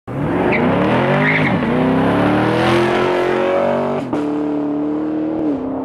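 2017 Camaro SS's 6.2-litre LT1 V8 accelerating hard, its note climbing and dropping at upshifts about a second and a half and four seconds in. It runs through the stock exhaust with the active exhaust valves held open by a pulled fuse.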